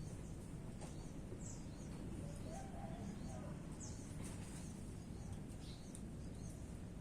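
Outdoor ambience: a steady low background noise with a few faint, short bird chirps scattered through it.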